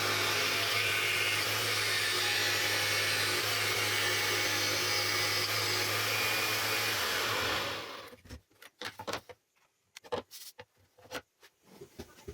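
Homemade band saw's electric motor and blade running steadily with a low hum, then switched off and winding down about seven and a half seconds in, followed by a few light knocks and clicks.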